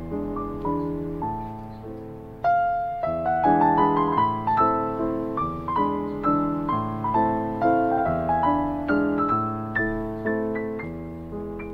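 Solo piano music: a melody of struck notes, each fading after it sounds, over low bass notes.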